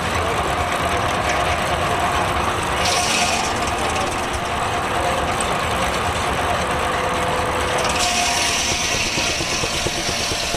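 Portable sawmill running, belt-driven by a Case steam traction engine: a steady mechanical running noise, with a short hiss about three seconds in and a hiss joining about eight seconds in.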